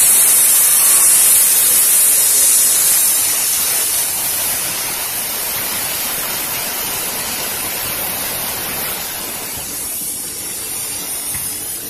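Compressed air hissing steadily from an air-compressor hose nozzle blown at a fidget spinner to spin it. The hiss is loudest for the first few seconds, then runs a little softer.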